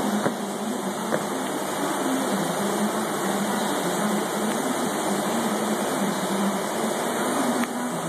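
Steady mechanical hum over a constant rushing noise, with two light clicks near the start.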